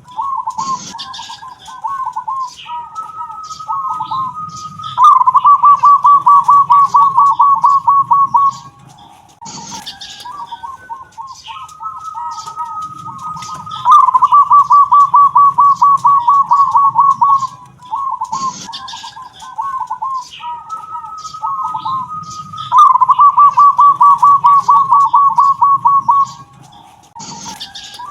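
Local zebra dove (perkutut) singing its prized 'kung'-type song: three repeated phrases about nine seconds apart, each starting with soft stuttering coos and a higher held note, then a loud, rapid rolling trill lasting about three and a half seconds.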